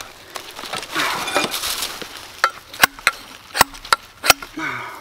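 Hand digging tool scraping and chopping into leaf-littered soil to dig a trap hole, with about five sharp knocks in the second half as the tool strikes the ground.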